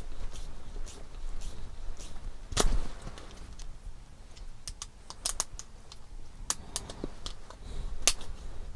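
Scattered small clicks and taps of a metal screwdriver and red plastic RC-kit suspension parts being handled while a pin is screwed in, with a louder knock about two and a half seconds in and another near the end.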